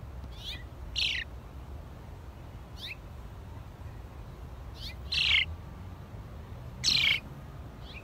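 House sparrow chirping: short, high, downward-sliding chirps, some single and some in quick pairs, with louder ones about a second in, around five seconds and near seven seconds.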